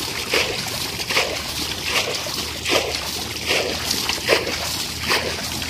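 Water splashing and sloshing in repeated strokes, a little faster than one a second.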